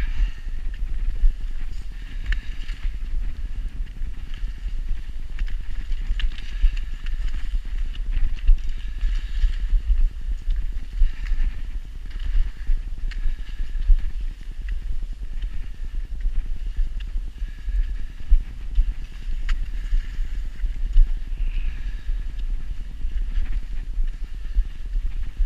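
Footsteps crunching on packed snow at a walking pace, with a continuous low rumble on the camera microphone.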